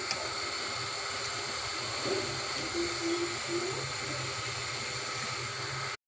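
Steady hum and hiss of background machinery or room noise, with faint short wavering tones. It cuts off suddenly at the end.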